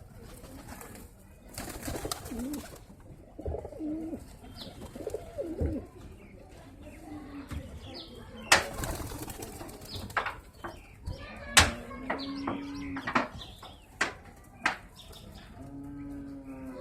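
Pigeons cooing, several low steady coos, with a few sharp clicks among them that are the loudest sounds.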